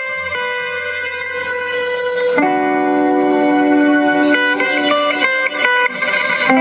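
Rock band playing an instrumental passage: long held lead notes that step and bend over bass guitar and drums. Cymbals come in about a second and a half in, and the band gets louder just after.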